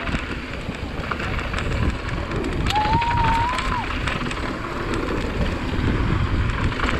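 Mountain bike riding fast down a dusty gravel trail, heard from the rider's own camera: wind buffeting the microphone, tyres crunching and the bike rattling over rough ground. A short high squeal rises slightly about three seconds in.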